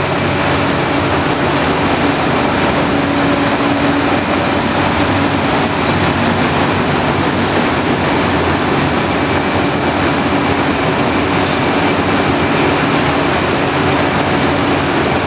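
Veneer roller dryer running: a steady, unchanging mechanical noise with a low hum underneath.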